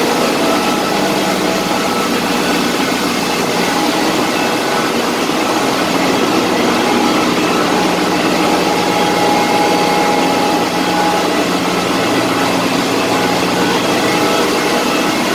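Loud, steady machinery noise in a ship's engine room: a dense, even rumble with several steady hums in it, running without a break.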